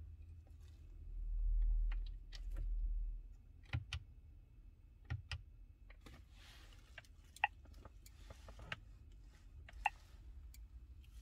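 Light scattered clicks and taps, a fingertip tapping the glass of a car touchscreen head unit, the two sharpest about seven and a half and ten seconds in. A low rumble swells twice in the first three seconds.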